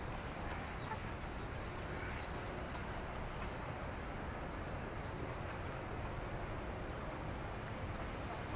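Insects trilling: a thin, steady, high-pitched trill with a short chirp repeating every second or two, over a steady low background hum.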